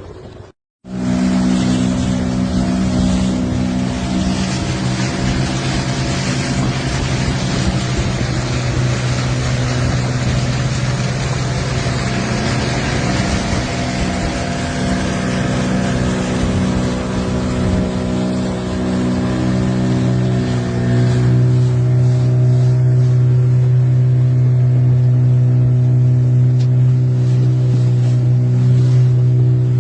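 Small fishing boat's motor running steadily under way, with a strong low hum and a constant hiss. It cuts out briefly right at the start, and its note grows stronger and steadier about two-thirds of the way through.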